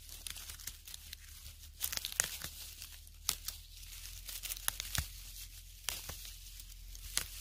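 Hand snapping young fern fiddleheads off the crown and pushing through the dry, papery dead fronds around it: irregular crackling and rustling with a few sharp snaps.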